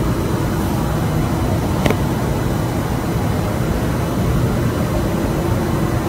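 Steady low rumbling drone with a faint held tone above it, presented as a mysterious sound in the sky; a single sharp click about two seconds in.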